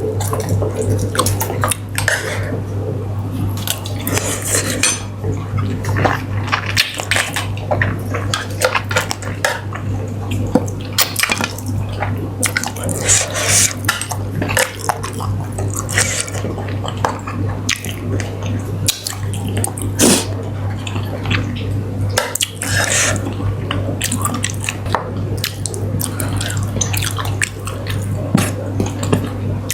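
Eating sounds: dishes and cutlery clinking irregularly, with wet sucking and squishing noises of fish curry being eaten by hand, over a steady low hum.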